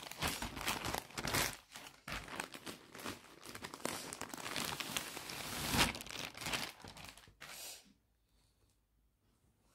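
Plastic packaging crinkling and tearing in irregular rustles as a courier mailer and a clear plastic garment wrap are handled and pulled open, stopping abruptly about eight seconds in.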